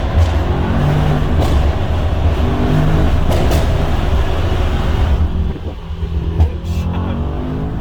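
Mercedes-AMG E63 S's twin-turbo V8 running loudly, its note rising and falling as it revs, with sharp exhaust pops and crackles scattered through. The note drops away for a moment near the end, and the loudest pop comes just after.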